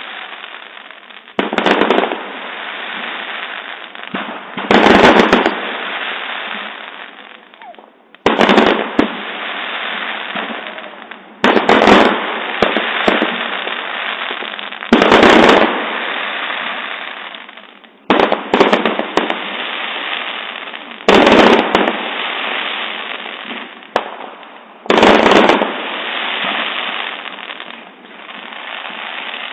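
Fireworks bursting overhead: a sharp bang every three to four seconds, each followed by a fading crackle and rumble.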